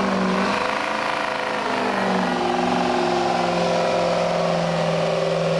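Pickup truck engine running hard under load as it drags a weight-transfer sled in a truck pull. The pitch holds steady, dipping slightly about two seconds in.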